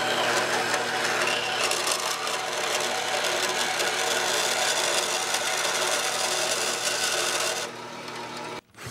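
Small band saw set upright and running, its blade cutting through a flat metal bar fed by hand: a steady motor hum with the hiss of the blade in the metal. The sound eases off near the end as the cut finishes.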